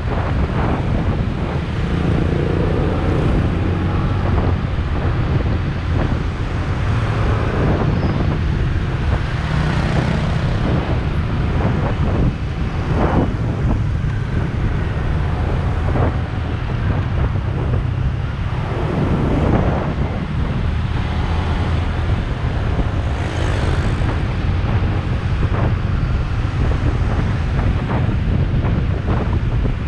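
Wind rumbling on the microphone of a camera on a moving motorbike, over the running sound of the bike and surrounding road traffic.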